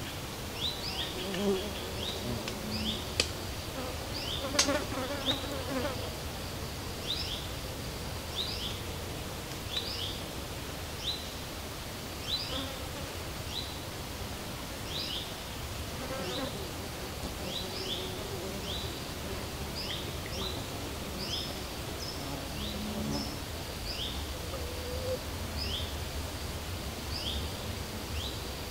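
Summer pond-side ambience: flying insects buzzing past, over a steady run of short, high, falling chirps repeating about once or twice a second. Two sharp clicks sound in the first five seconds.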